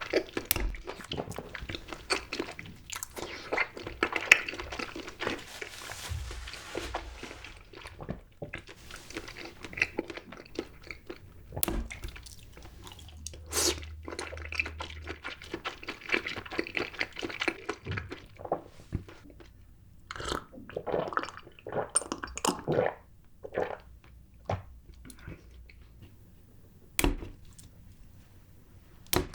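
Close-miked eating of grape jelly: wet squishy chewing and biting, with smacks and clicks. Dense chewing through the first two-thirds, then separate smacks with short pauses.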